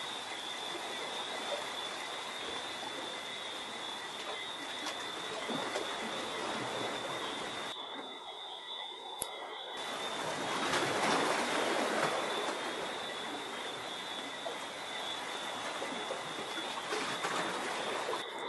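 A steady, high-pitched chorus of frogs calling continuously over a hiss of surf or wind, which swells louder about halfway through.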